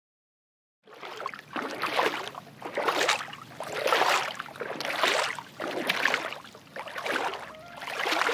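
A wooden paddle stroking through river water beside a wooden boat, a splashing swish about once a second, starting about a second in.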